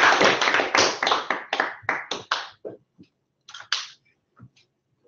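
Applause from a small group, loud and dense at first, thinning out about two and a half seconds in to a few last scattered claps.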